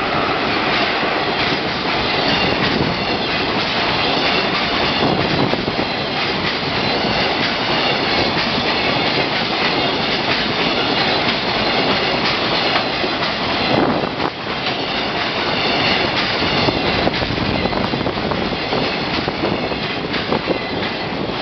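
Freight train hauled by two EF66 electric locomotives passing close by, a continuous rolling rumble with the clickety-clack of its wagons' wheels over the rail joints.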